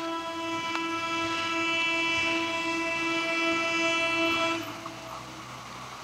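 Electric multiple unit local train's air horn sounding one long steady blast, which cuts off about four and a half seconds in. The train's low running rumble is left under it as it comes on.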